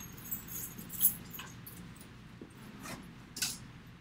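Scattered light clicks and high metallic jingles over a steady low room hum.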